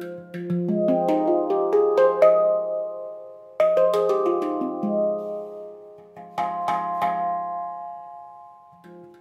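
Hand-hammered steel handpan played with the fingers. A quick rising run of struck notes, then a falling run, then a short flurry, each left to ring and fade between phrases.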